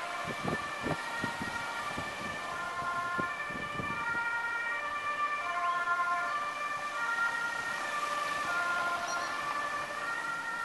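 Dutch ambulance's two-tone siren, alternating steadily between a high and a low note: the warning of an ambulance on an urgent (A1) run.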